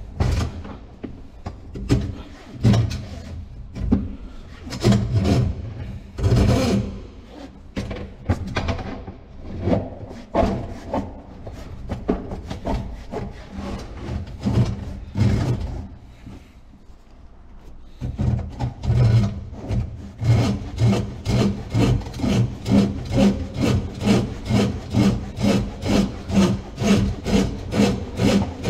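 Drain snake cable being worked down a kitchen sink drain line: irregular scraping and knocking strokes, settling in the second half into a steady rhythmic scraping about twice a second.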